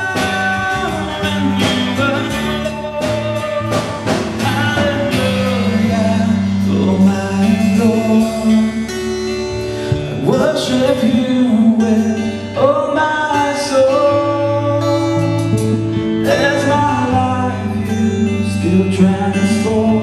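Live worship band playing: drum kit, bass guitar and lead guitar, with singing, with some sliding notes partway through.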